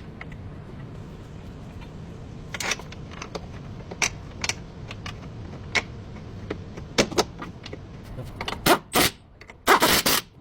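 Scattered sharp metallic clicks and knocks over a steady low hum, coming faster and louder near the end.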